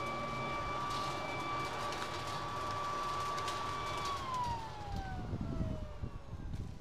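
WORX corded electric leaf blower/vacuum running with a steady high whine, then switched off about four seconds in, its motor winding down with the whine falling steadily in pitch. Low rumbling handling noise follows as the machine is lifted.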